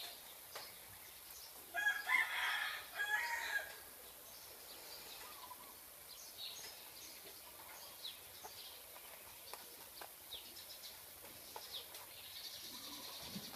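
A rooster crowing once, about two seconds long, near the start, with faint scattered ticks around it.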